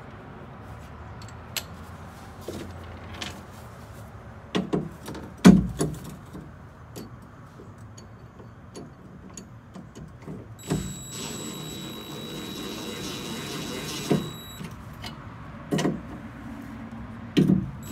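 Steel parts clank and knock as they are handled, the loudest knock about five and a half seconds in. From about eleven seconds a DeWalt cordless driver runs steadily with a high whine for about four seconds, turning a socket on an extension to drive a bolt into the steering column bracket. Two more knocks follow near the end.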